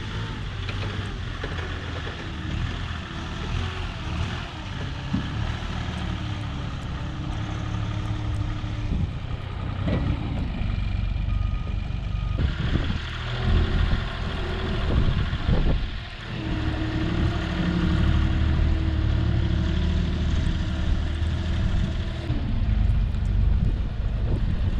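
A vehicle engine running, revving up and holding for a few seconds at a time, then dropping back, several times over.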